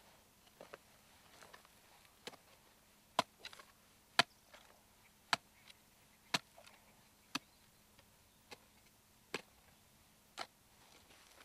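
Handheld ferret locator receiver ticking: sharp clicks at about one a second, as it picks up the signal from a collared ferret underground.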